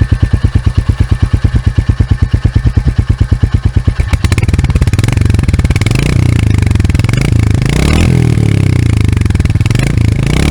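Royal Enfield Hunter 350's single-cylinder engine idling with an even, rapid thump. From about four seconds in it is revved, the exhaust note thickening, with throttle blips that climb and fall twice near the end.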